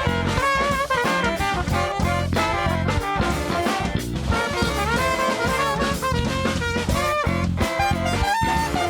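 Live band playing an instrumental passage: horn section (trumpet and saxophone) carrying melodic lines over a drum kit and bass groove.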